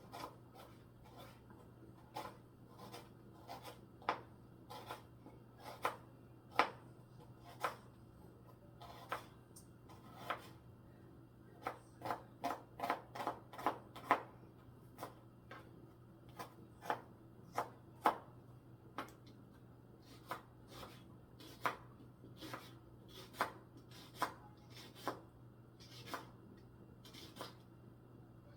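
Knife slicing an onion into small pieces: sharp separate cuts about one a second, with a quicker run of cuts about halfway through. A steady low hum runs underneath.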